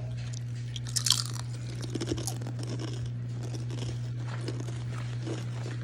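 Several people biting into Cape Cod kettle-cooked potato chips and chewing them, with a loud crunch about a second in followed by a run of smaller crisp crunches.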